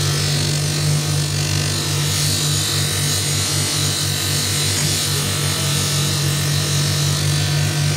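Electric power tool running steadily with an abrasive against the machete's steel blade, polishing it: a steady motor hum under a continuous abrasive hiss.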